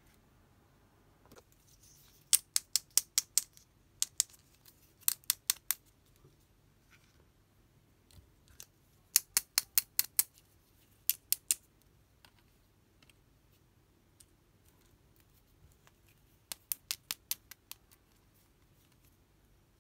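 Crisp, high clicks in quick runs of four to six, several times over: small plastic toy accessories being worked in the fingers.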